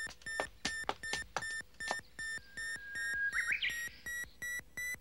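Electronic camera self-timer beeping, short high beeps that come faster and faster as it counts down to the shutter.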